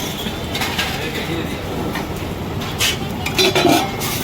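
Busy street ambience with a steady traffic rumble. Metal plates and spoons clink a few times at a food stall, and a faint voice comes in near the end.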